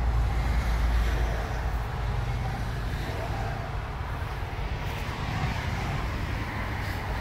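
Low, steady rumble of motor-vehicle engine noise, heaviest in the first second or so.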